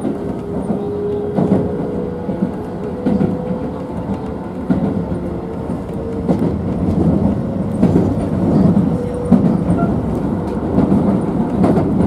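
Keisei Oshiage Line train running on elevated track, heard from inside the car: the wheels rumble on the rails and clack over rail joints about every one and a half seconds. A steady whine runs under it and fades out about nine seconds in.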